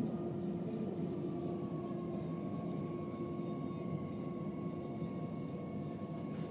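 Gautrain electric multiple unit heard from inside the carriage as it slows into a station: a steady running rumble with a low hum and a motor whine that sinks a little in pitch as the train brakes.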